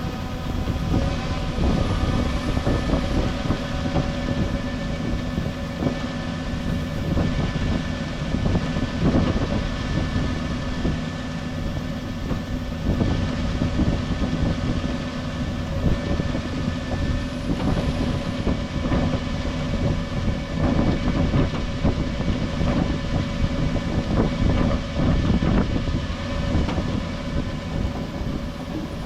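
Tractor engine running steadily under load with the grain cart's unloading auger driving, a dense machinery drone with several constant tones, while grain is unloaded.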